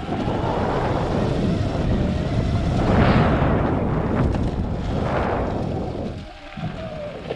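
Heavy wind rush buffeting the microphone of an electric dirt bike riding at speed, swelling twice and easing near the end, with a faint electric motor whine that rises and falls in pitch beneath it.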